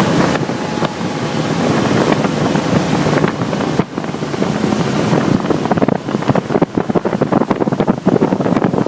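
Speedboat under way: wind buffeting the microphone over the rush of water along the hull, turning choppy and gusty in the second half.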